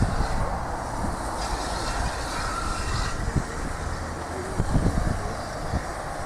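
Steam railmotor No. 93 running along the line, heard from aboard: a steady rumble with a few low knocks from the wheels in the second half.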